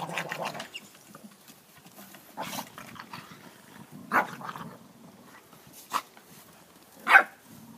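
Continental Bulldog puppies at play, giving four short barks a second or two apart. The last one, near the end, is the loudest.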